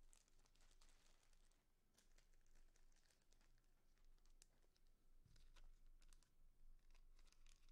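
Near silence with faint scattered clicks and rustling from a trading card in a hard plastic holder being handled with gloved hands.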